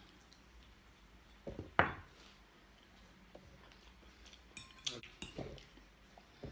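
Knife and fork clinking and scraping against a ceramic plate while meat is cut. There are a few sharp clinks, the loudest just under two seconds in, and another cluster around five seconds in.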